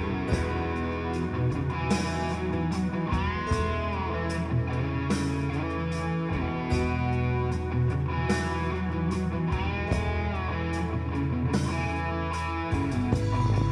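Guitar-led rock music with held bass notes, a bass change near the end, and frequent drum and cymbal hits.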